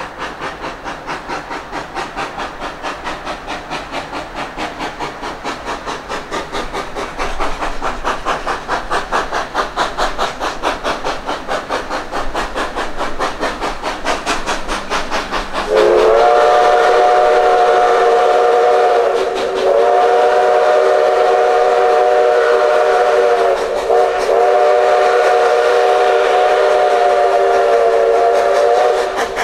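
Ex-Canadian National Mikado steam locomotive #3254 working steam with a steady, rhythmic exhaust chuff that grows louder as it approaches. About halfway through, its whistle sounds a chord of several tones, sliding up at the start, in long blasts with a brief one near the end: long, long, short, long, the grade-crossing signal.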